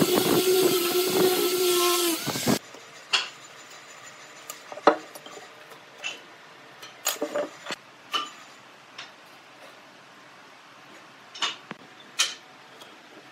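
Angle grinder with a sanding disc running at a steady pitch as it sands pine, cutting off abruptly about two and a half seconds in. After that, scattered light clicks and taps of a steel square and pencil being set on and drawn across the wood.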